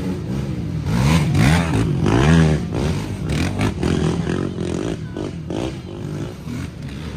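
Race ATV engines revving hard, the pitch rising and falling again and again as the riders work the throttle up the hill climb. More than one machine is heard at once, loudest about two seconds in.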